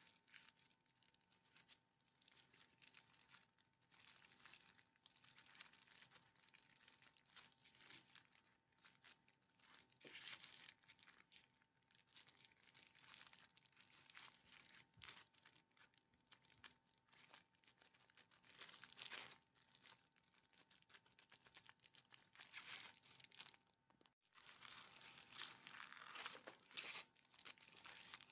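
Faint, irregular crinkling and rustling of thin disposable plastic gloves and baking paper as hands fill, fold and move puff pastry squares, over a faint steady hum.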